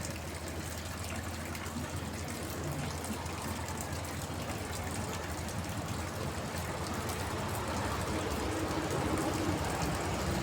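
Steady rain falling on a water tank: a dense patter of drops with water trickling, over a low steady hum, growing slightly louder near the end.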